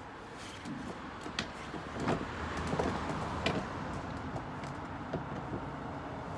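Scattered light knocks and clicks from handling, over a low steady rumble.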